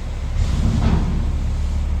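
Garbage truck's diesel engine running with a steady low rumble, and a brief rushing noise over it about half a second in.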